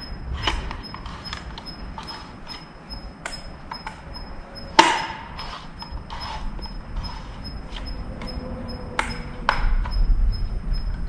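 Scattered clicks and knocks from handling a Bauer chainsaw that is switched off, its plastic body and bar being turned and worked by hand. One much sharper click comes about five seconds in and two more near the end.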